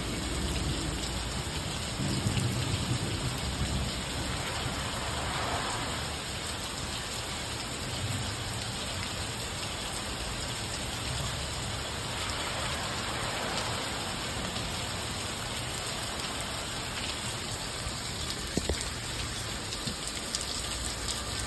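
Heavy rain falling steadily, a constant hiss, with a low rumble of thunder in the first few seconds.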